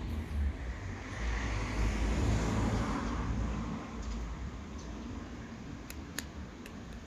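A road vehicle passing by: its noise swells to a peak about two to three seconds in, then fades away. A few sharp clicks come near the end.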